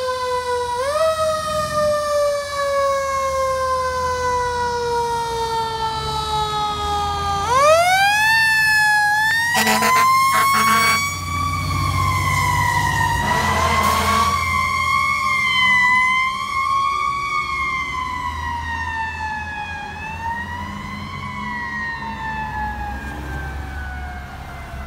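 Fire engine's Federal Q mechanical siren winding down in a long falling wail, spun up sharply again about seven seconds in, then held with rising and falling sweeps before winding slowly down near the end. Horn blasts cut in around ten and fourteen seconds in, over the rumble of the truck's engine.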